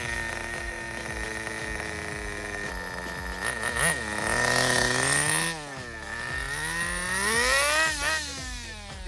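Small nitro (glow-fuel) engine of a Kyosho Mantis 1/10 RC touring car. It runs steadily for about three seconds, then revs up and down several times as the car accelerates and slows, with high whining peaks about four seconds in and again near the end.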